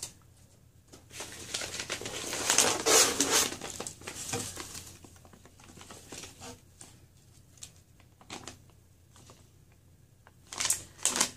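Paper filler rustling and a jerky pouch crinkling as they are pulled out of a cardboard box. The rustling is loudest two to three seconds in and then tails off into soft, scattered crackles. Near the end the pouch gives a short, sharp burst of crinkling.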